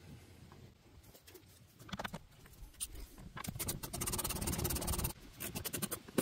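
Small stubby ratchet with a bit driving a mud-guard screw, its pawl clicking rapidly in runs from about three and a half seconds in, after a few scattered handling clicks.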